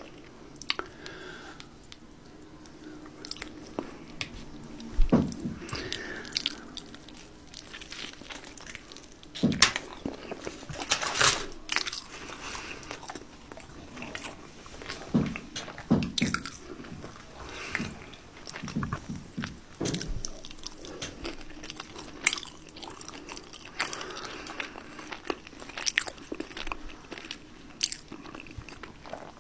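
Close-miked eating of a KFC Double Down fried chicken sandwich: biting and chewing with irregular crunches and smacks of the breaded chicken.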